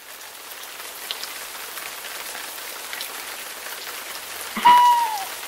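Steady rain fading in, with scattered drops pattering on a surface. About four and a half seconds in, a single short pitched tone sounds over it, its pitch dipping as it ends.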